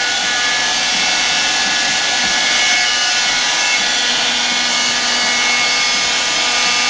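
Hard-floor vacuum cleaner running steadily, a constant motor whine over the rush of air.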